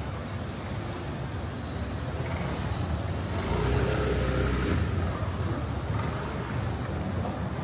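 Street traffic: a steady rumble of vehicles on the road, with one passing louder and closer from about three to five seconds in.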